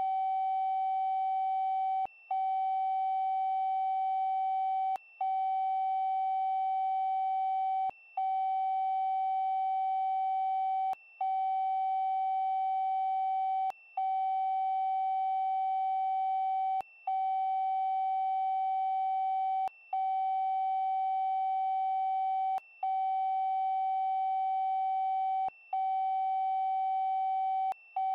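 Censor bleep: a steady electronic beep tone laid over the audio, broken by brief dropouts about every three seconds.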